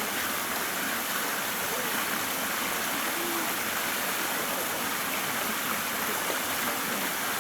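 Steady rushing noise with no rhythm, like running water, with a few faint voices in the background.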